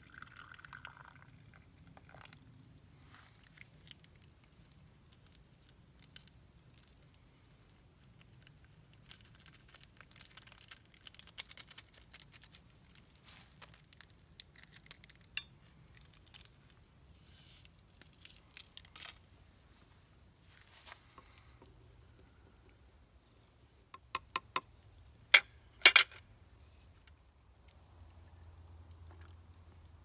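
Liquid poured from a small metal kettle into a wooden cup at the start, followed by light clinks and clatter of camp cups and dishes being handled. A few sharp clicks near the end are the loudest sounds.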